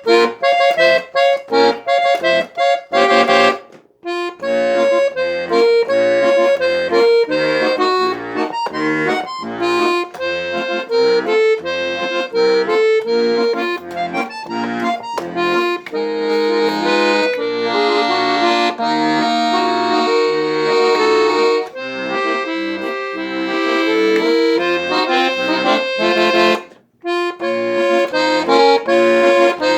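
Accordion playing a melody over a rhythmic bass-and-chord accompaniment. It opens with short detached chords, pauses briefly about four seconds in and again near the end, and holds longer sustained chords in the middle.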